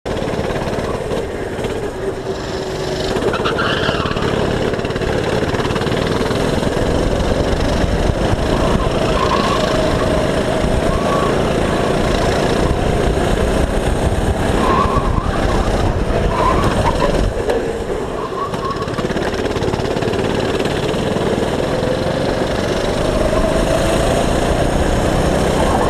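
Go-kart engine running hard, heard from on board the kart, its pitch dropping and climbing again as the kart slows for corners and accelerates out of them.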